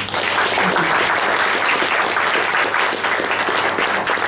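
Audience applauding: many people clapping at once, a dense, even patter of claps.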